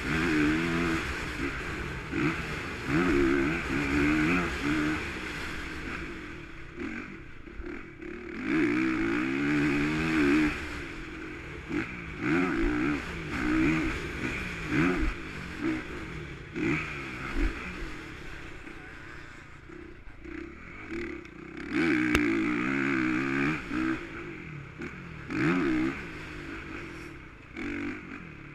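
Motocross bike engine heard from a camera mounted on the bike, revving up and dropping off again and again as the rider opens and closes the throttle around a dirt track.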